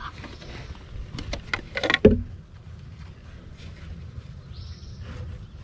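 Honey bees buzzing around a wax honeycomb as it is cut free from the underside of a wooden lid with a knife: a run of sharp clicks and crackles, then one loud thump about two seconds in.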